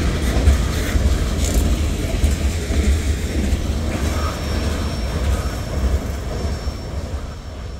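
Wheels of the freight train's last covered hopper cars rumbling and clattering over the rails as the end of the train rolls past and away. The sound fades steadily toward the end.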